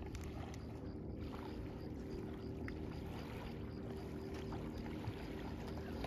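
Lakeshore ambience: a steady low drone under a faint rushing noise, with a faint high tick repeating two or three times a second.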